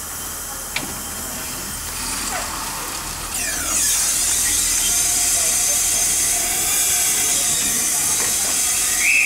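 A 1921 Kerr Stuart narrow-gauge steam tank locomotive standing ready to depart, hissing steam; about three and a half seconds in the hiss grows much louder and stays that way. Its steam whistle gives a short high blast right at the end.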